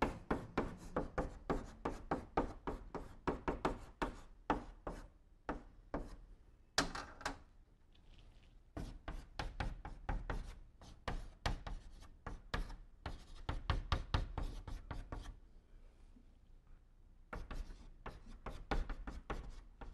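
Chalk tapping and scraping on a blackboard as characters are written stroke by stroke, in quick runs of sharp taps that pause briefly about eight seconds in and again around sixteen seconds.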